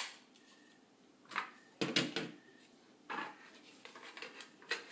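Hard plastic pieces of a Mattel Movie Masters Bat Signal knocking and clicking as they are handled and pressed together to snap into place: a scatter of short clicks and clatters, with a cluster about two seconds in.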